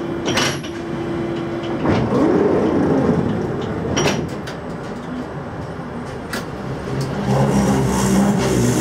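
Berlin U-Bahn GI/1E train standing and then pulling out: a steady tone for the first couple of seconds, two sharp knocks of the sliding doors shutting, at the start and about four seconds in. Near the end the electric traction motors start to hum, rising in pitch as the train accelerates.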